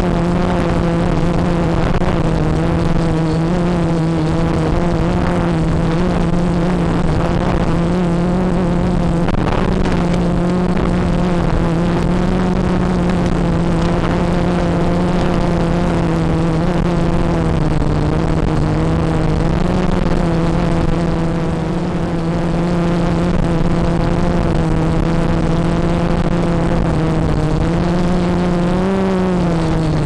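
Multirotor drone's electric motors and propellers humming steadily in flight, the pitch wavering slightly with throttle and rising briefly near the end, over a rushing noise typical of wind on an onboard microphone.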